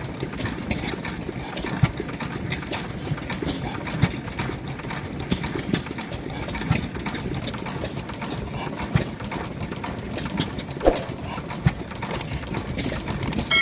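Crossley JB open-crank hit-and-miss stationary engine running: a steady clatter of rapid clicks from its valve gear and governor, with a louder knock about every one to two seconds, the spacing uneven, as the governor lets it fire only when its speed drops.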